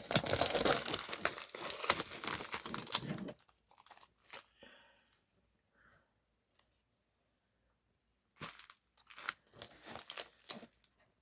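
Album packaging being torn open and crinkled by hand: a dense spell of tearing and crinkling for about three seconds, then a few scattered clicks, and a second shorter bout of rustling near the end.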